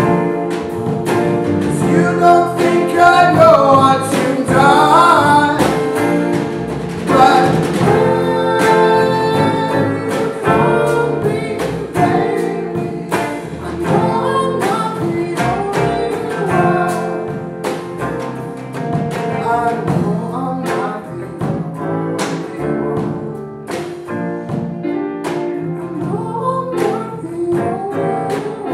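A live band playing: drum kit, upright double bass, keyboard and hollow-body electric guitar, with a lead vocalist singing over a steady beat.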